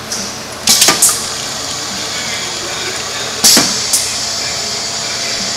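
Pneumatic piston filling machine cycling to dispense a 250 mL dose: sharp air hisses about a second in and again about three and a half seconds in, with a steady hiss between them.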